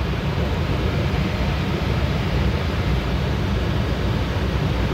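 Steady rushing air noise with a heavy low rumble.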